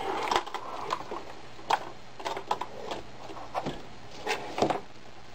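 Irregular light knocks and clunks, about eight or nine, of a vintage cast-iron Singer sewing machine and its portable case being handled and turned around.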